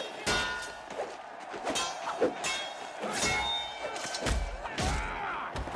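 Film sword-fight sound: several sharp metal blade clashes that ring on briefly, the strongest about a quarter of a second in and about three seconds in, mixed with thuds and the fighters' strained grunts.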